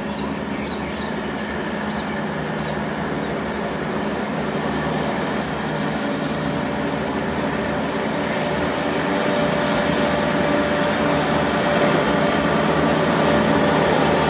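Alstom diesel-electric locomotive working at full power as it hauls a heavy container freight train, its engine note steady and growing steadily louder as it approaches.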